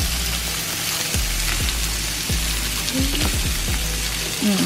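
Sausage sizzling as it fries in a pan, a steady crackling hiss, over background music with deep bass notes that drop in about a second in and again near three seconds in.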